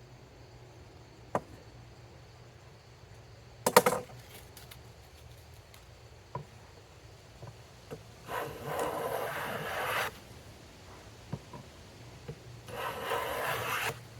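Two long single strokes of a hand plane shaving a board, a few seconds apart. Earlier, a short loud wooden knock with a brief ring, as of a tool or board being set down on the bench.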